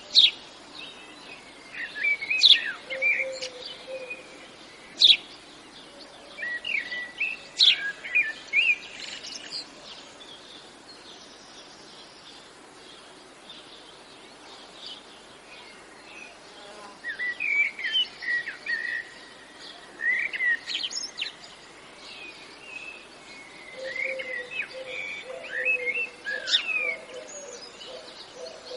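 Birds singing: bursts of quick high chirps and trills separated by quieter gaps, over a faint steady hiss, with a lower held call joining near the start and near the end.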